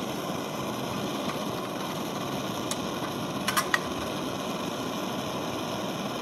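Two Optimus 8R white-gas stove burners running together just after lighting, giving a steady rushing hiss of vaporised fuel burning. A few light clicks come about halfway through.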